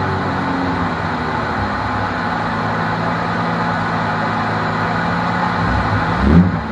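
BMW race car's engine running steadily at low speed, heard from inside the stripped cabin with a constant hiss over the engine note. Near the end the note jumps and wavers in a short burst of throttle.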